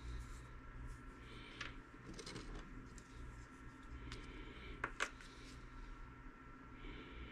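Quiet handling of small RC axle parts and a tube of moly grease: light rustles and small clicks of plastic and metal pieces, with two sharp clicks close together about five seconds in, over a faint steady hum.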